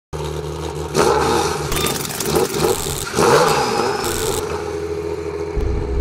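Engine revving in sharp surges about one, two and three seconds in, over a steady low drone.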